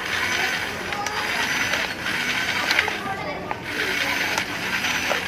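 Mechanical whirring and ratcheting in two spells of about two seconds each, with a short dip between them and scattered sharp clicks.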